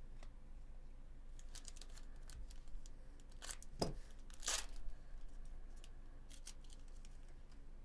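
Bowman Chrome foil card pack being torn open and its wrapper crinkled, with a few short rips about halfway through. Light rustles and clicks come from the cards being slid out and handled.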